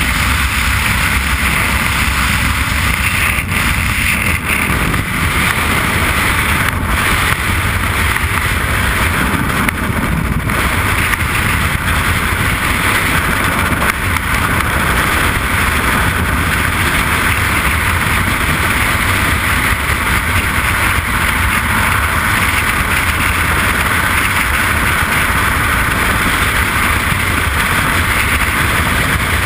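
Loud, steady rush of freefall wind buffeting a helmet camera's microphone during a skydive, with a slight change in the noise a few seconds in as the jumpers leave the aircraft door.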